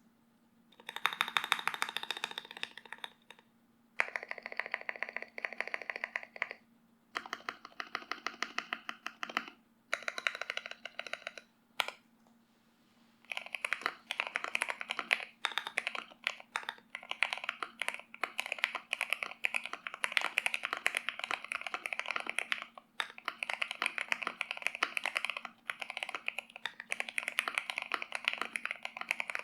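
Typing on an Akko MOD005 mechanical keyboard with an FR4 plate, Gateron Oil King linear switches and ASA-profile keycaps, damped with case foam, PE sheet and a two-layer tape mod. Short fast bursts of keystrokes with brief pauses, then continuous rapid typing from about a third of the way in. A faint steady hum lies underneath.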